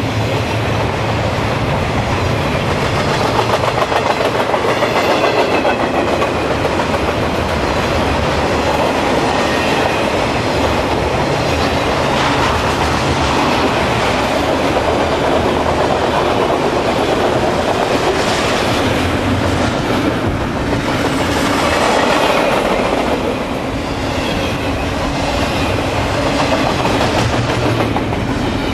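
Intermodal freight train cars rolling past close by: a steady loud rumble and clatter of steel wheels on the rails, with clickety-clack as the wheel trucks cross rail joints.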